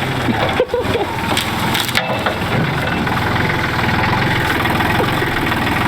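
Reversing vehicle with its engine running, and a steady crunching and cracking, with sharp knocks about half a second and two seconds in, as it backs into and damages the woodchipper.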